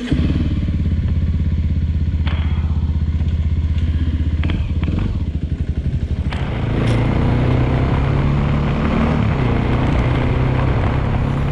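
Suzuki 250 motorcycle engine idling with an even, steady pulse, with a few light clicks. About six seconds in the bike pulls away and runs on along the road, with the engine note changing and wind noise rising.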